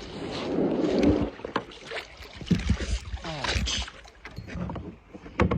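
A kayak being boarded and pushed off: the hull scraping, followed by several knocks and creaks against the hull.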